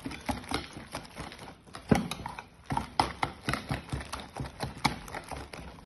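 A metal utensil beating raw egg batter with chopped onion, tomato and flour in a red plastic bowl: quick, uneven clicks and scrapes against the bowl, several a second, one louder knock about two seconds in.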